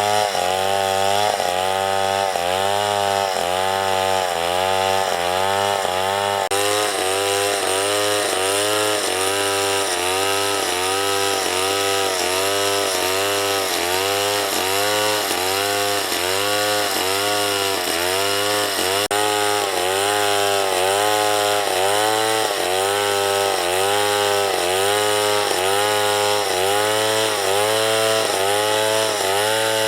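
Chainsaw running under load while cutting wood. Its engine pitch dips and recovers about once a second in a steady rhythm.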